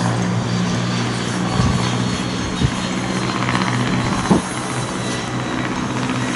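Wind buffeting the microphone over a steady low droning hum, with a few brief thumps about one and a half, two and a half and four seconds in.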